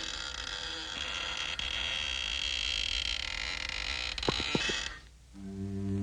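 Cartoon sound effect: a steady, buzzing noise that cuts off suddenly about five seconds in, followed by low bowed strings of the orchestral score.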